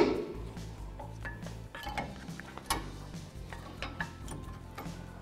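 Scattered light metallic clinks and scrapes of a steel pry tool working rusted brake pads out of a truck's rear disc-brake caliper bracket, one sharper clink about two and a half seconds in.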